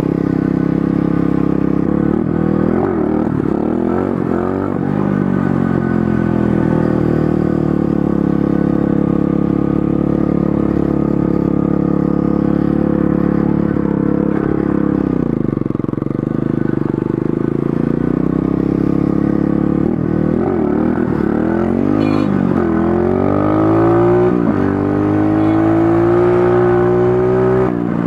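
Pit bike engine running as it is ridden, its pitch climbing in rising sweeps as the throttle opens a few seconds in, holding steady while cruising, then revving up again in several rising sweeps over the last several seconds, dropping back briefly between them.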